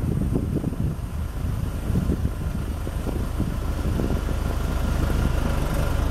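Diesel engine of a telehandler running while it handles a heavy timber on its forks. It makes a steady low drone that grows louder and steadier in the second half.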